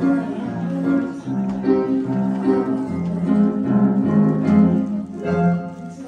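Upright piano playing a song accompaniment, with notes and chords changing every half second or so.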